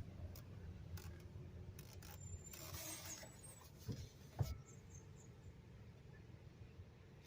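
Faint low rumble with scattered clicks and rubbing of a handheld recording device being handled, a short hiss about three seconds in and two soft thumps around four seconds.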